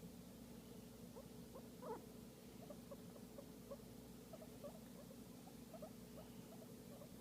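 Guinea pig making a rapid run of faint, short squeaking calls, several a second, while being stroked: its contented sound during a massage.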